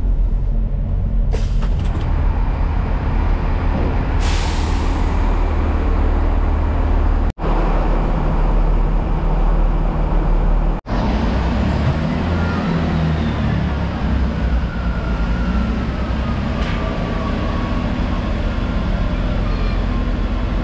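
Class 166 diesel multiple unit's engines running with a steady low drone, with a short burst of air hissing about four seconds in. The sound cuts off abruptly twice; after the second cut the engine note shifts and a faint whine falls slowly in pitch.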